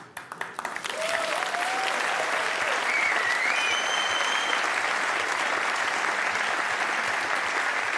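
Studio audience applauding: a few scattered claps that swell within about a second into dense, steady clapping, with a shrill whistle from the crowd about three to four seconds in.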